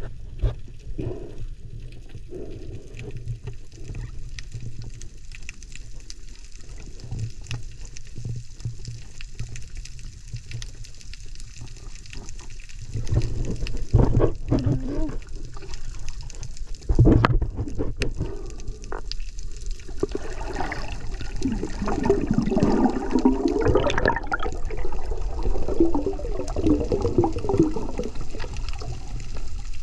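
Water heard through a submerged camera: a steady, muffled low rumble, with a sharp bump just past the middle and louder, uneven surges of water noise over the last third.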